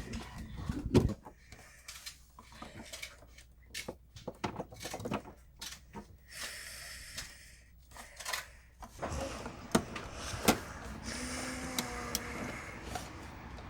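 Scattered small clicks, taps and scrapes of an awl and copper wires being worked against a plastic wall receptacle, as a wire is pried out of its push-in terminal.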